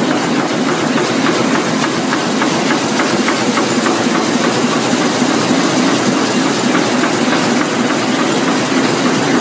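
Roland 704 four-colour sheetfed offset printing press running at production speed, about 12,500 sheets an hour: a loud, steady mechanical din with a fast regular clatter from the sheet feed and cylinders.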